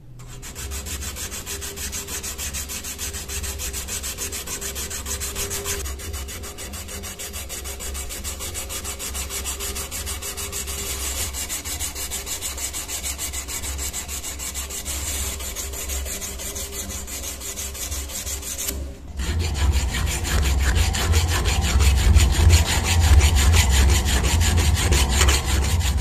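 Wet abrasive paper rubbed back and forth over a rusty steel knife blade. About 19 seconds in, after a brief pause, it gives way to the louder, coarser rasp of a flat metal file stroking the blade.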